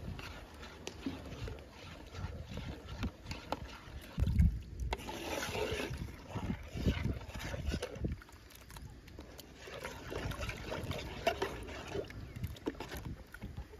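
A metal spoon stirring milk in an aluminium pot: the milk sloshing, with light clinks and scrapes of the spoon against the pot. A low thump about four seconds in is the loudest sound.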